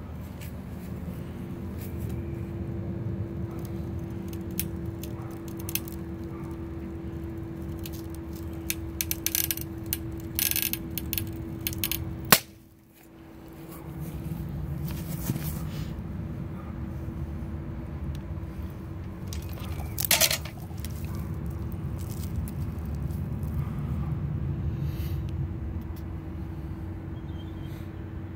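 Quartz geode being squeezed in the chain of a chain-type pipe cutter: a run of small clicks and creaks as pressure builds, then one sharp, loud crack about twelve seconds in as the stone splits. A steady low rumble and faint hum lie under it all.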